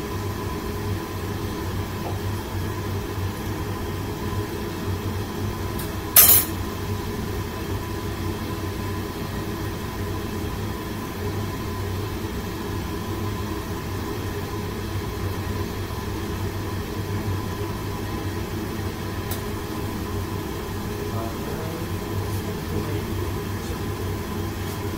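Steady rumble and low hum of a commercial kitchen's gas range and exhaust hood running, with one sharp clank about six seconds in.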